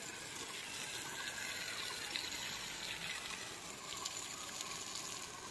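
Garden hose spraying a steady stream of water onto bare soil.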